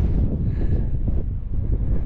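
Wind buffeting the microphone on an exposed mountain top: a loud, uneven low rumble that rises and falls in gusts.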